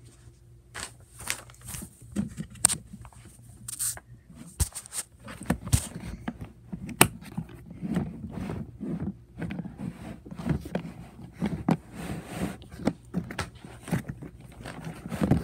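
Scattered close clicks, scrapes and rustling of someone moving about and handling things near the microphone.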